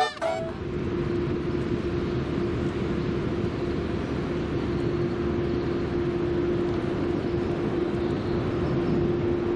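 Steady outdoor background noise: an even rush with one constant low hum running under it.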